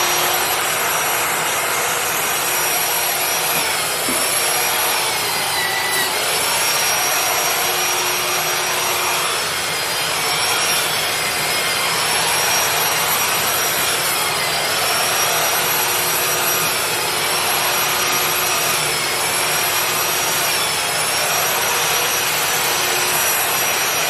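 Power drywall sander with built-in dust extraction to a shop vac, running while sanding a drywall ceiling. Its steady whine dips in pitch every couple of seconds, then winds down at the end as it is switched off.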